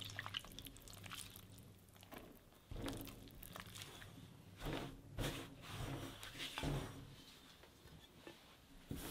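Silicone spatula stirring flour into wet yeast dough in a glass mixing bowl: faint, irregular stirring and scraping. Near the end the shaggy dough is tipped out of the bowl onto a stainless steel counter.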